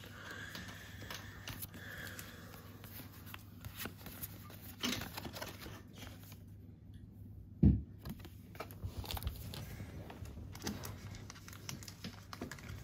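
Pokémon trading cards being handled: scattered light rustles and clicks of card stock, with one dull low thump a little past halfway.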